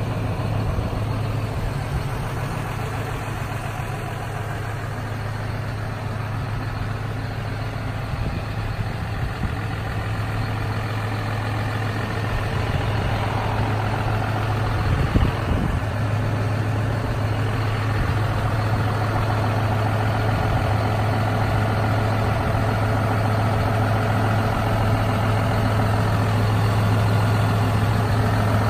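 John Deere 6150R tractor's six-cylinder diesel engine idling steadily, close by. A short thump about halfway through.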